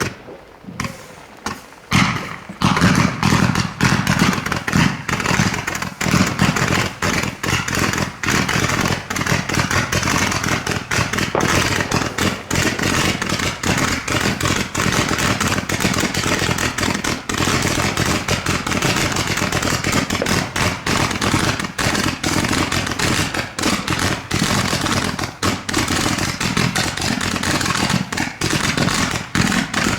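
New Year's Eve fireworks: a few separate bangs, then from about two seconds in a dense, continuous rattle of rapid bangs and crackles that does not let up.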